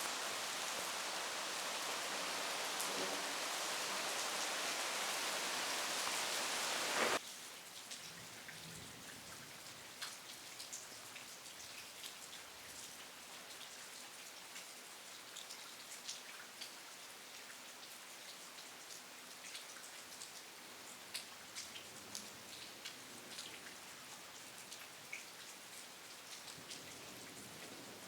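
Heavy rain falling in a dense, steady hiss that cuts off suddenly about seven seconds in, followed by lighter rain with scattered individual drops and drips.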